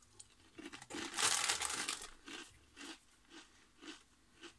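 Biting into a Walkers Wotsits Crunchy corn puff: a loud crunch about a second in, then crunchy chewing at about two chews a second, fading toward the end.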